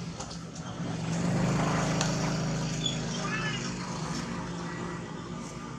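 A motor vehicle's engine passing, growing louder about a second in and fading away toward the end.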